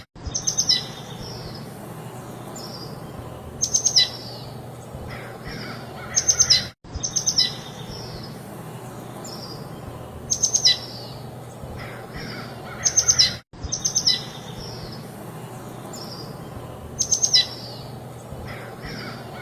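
Small birds chirping in short clusters of quick high notes every few seconds, over a steady hiss of light breeze. The sound cuts out for an instant twice, where the recording loops.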